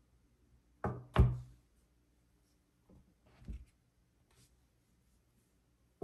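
Two sharp knocks close together about a second in, then a softer pair of knocks a little past the middle: hard objects being handled and set down on a table.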